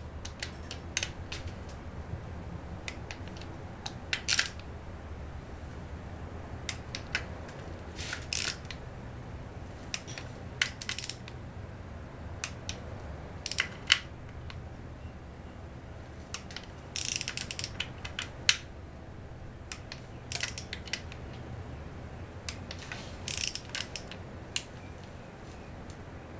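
Click-type torque wrench ratcheting in short bursts as bolts on an outboard V6 powerhead are drawn down on the final pass to 100 inch-pounds, over a steady low hum.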